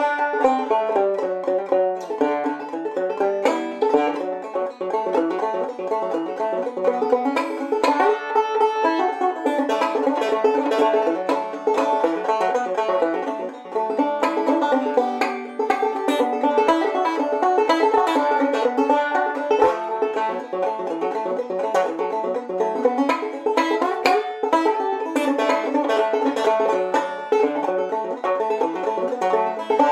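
Open-back banjo played clawhammer style: a brisk, unbroken run of plucked notes and brushed strums in an old-time tune.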